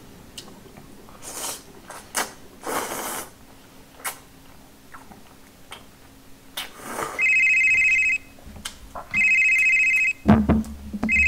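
Slurping and chewing of gan-jjajang noodles, then a telephone ringing from about seven seconds in: three loud trilling electronic rings, each about a second long, with short gaps between.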